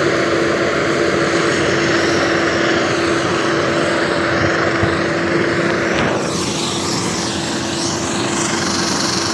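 Heavy machinery running steadily, a loud engine-like drone with a constant hum. About six seconds in, the hiss in it changes and turns brighter.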